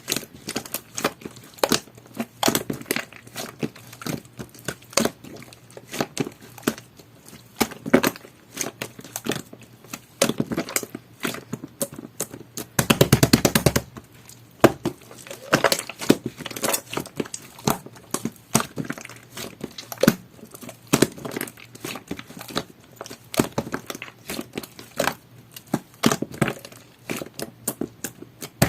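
Thick jelly-textured fudge slime being scooped, squeezed and pressed by hand, giving a steady run of sticky clicks and air-bubble pops, with a dense burst of rapid crackling pops about thirteen seconds in.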